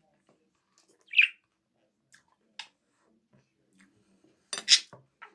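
Pet budgerigar chirping once about a second in, among sparse soft clicks from eating with a spoon; a louder, sharp sound comes near the end.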